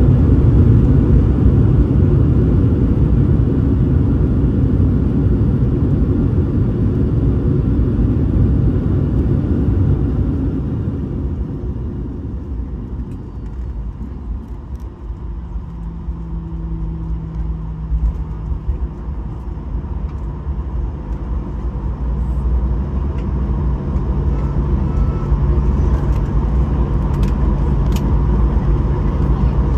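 Boeing 737-900ER's CFM56-7B engines heard from inside the cabin during the landing rollout: a loud, steady roar for about ten seconds that dies away over a few seconds as the plane slows. It leaves a quieter, steady low hum that grows a little louder again near the end.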